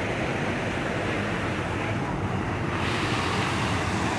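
Steady rushing of a small stream's flowing water, an even hiss-like noise with no break.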